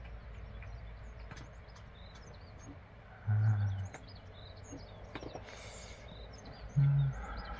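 Small birds chirping here and there outdoors over a steady low rumble. Two short low hums stand out, one about three seconds in and one near the end.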